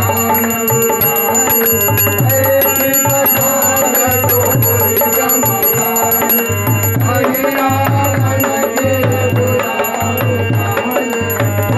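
Aarti music: a brass hand bell is rung without pause, its high ringing steady throughout, over a drum beaten in a steady rhythm.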